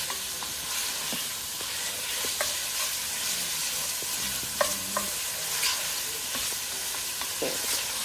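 Diced chicken, sausage and vegetables sizzling steadily in oil in an enamelled Dutch oven as the chicken browns, stirred with a wooden spoon that knocks lightly against the pot a few times.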